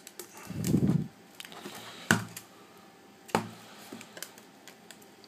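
A few light, separate clicks and taps of the iPad 2 glass and digitizer assembly being handled and lined up against the iPad's frame, after a soft low rub about half a second in.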